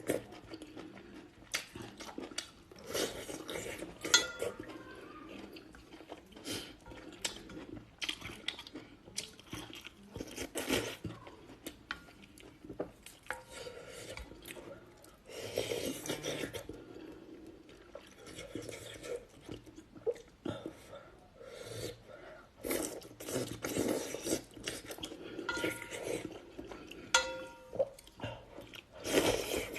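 Close-up eating sounds of a person working through a bowl of hot and sour noodles: chewing and mouth noises with many small clicks and knocks of utensils against the bowl, a few of them ringing briefly, around 4 seconds in and again near the end.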